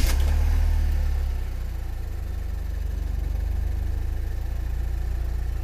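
2007 Pontiac Solstice GXP's 2.0-litre turbocharged four-cylinder engine firing up after cranking. It runs loudest for about the first second and a half, then settles into a steady idle.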